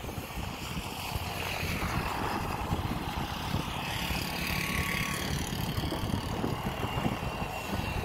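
Road traffic going along an unpaved dirt road, a car passing close about halfway through, with wind rumbling on the microphone.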